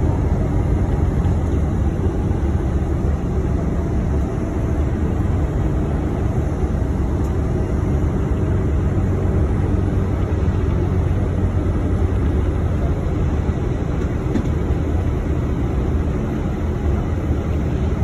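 Tour motor coach cruising at highway speed, heard from inside the cabin: a steady, loud low drone of engine and road noise.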